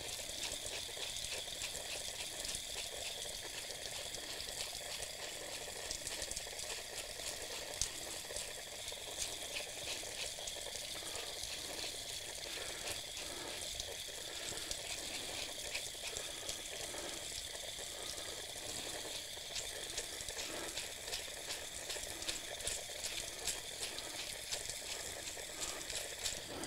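Tap water running steadily from an outdoor spigot and splashing over gloved hands and a wheel bearing, rinsing the degreaser out of the bearing.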